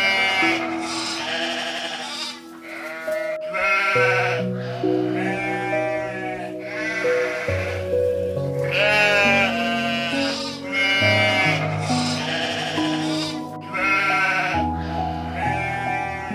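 Sheep bleating again and again, each call quavering, over background music with slow, sustained low notes.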